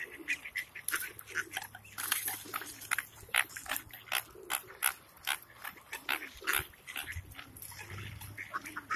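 Ducks and domestic geese crowding close, giving many short, rapid quacks and honks, several a second.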